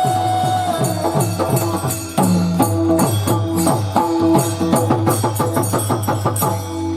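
Mridang, the barrel drum of Marathi kirtan, playing a fast run of strokes, the low strokes sliding down in pitch as they ring, with hand cymbals jingling along. A held sung note ends about a second in.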